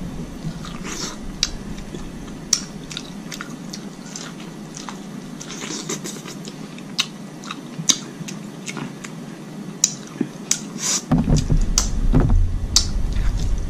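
Close-miked eating of a seafood boil by hand: biting and chewing, with frequent short sharp clicks and cracks. A louder, deeper sound joins near the end.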